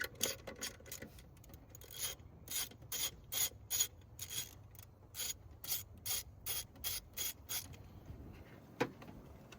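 Hand ratchet working a fastener in the engine bay: a few scattered clicks, then a steady run of short ratcheting strokes, about three a second, for some five seconds, and a single click near the end.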